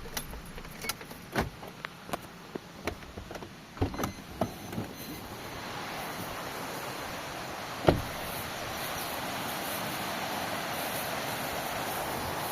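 A run of sharp clicks and knocks, then the steady rush of a waterfall that swells up a little before halfway and holds, with one loud thump in the middle of it.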